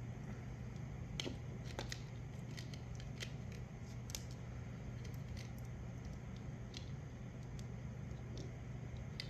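Scattered small clicks and snips from hand tools and small parts being handled at a workbench, over a steady low hum.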